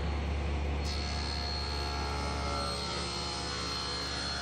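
Table saw running and ripping a walnut board along the rip fence. The blade enters the wood about a second in, adding a steady high whine and hiss over the motor's hum as the cut goes on.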